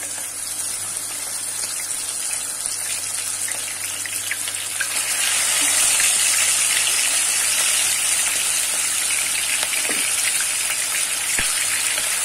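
Turmeric-coated chicken pieces shallow-frying in hot oil, sizzling steadily; the sizzle grows louder about five seconds in.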